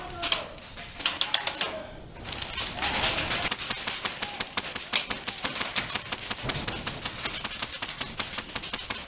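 Airsoft gun firing on full auto: a short burst of rapid clicking shots about a second in, then a long continuous burst from about two seconds in.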